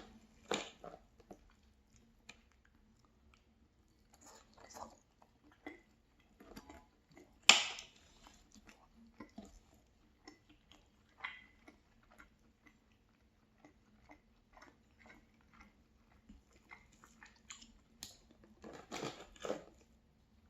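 A person chewing a mouthful of fried cheese pancake close to the microphone, with soft wet chews and crunchy bites of crisp cheese crust. One sharp, loud bite comes about seven and a half seconds in, and a run of louder chewing comes near the end.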